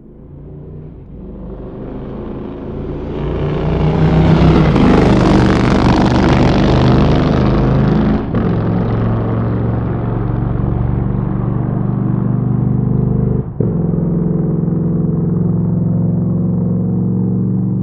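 Motorcycle engine growing louder over a few seconds, then running steadily under load, with two brief drops in sound partway through.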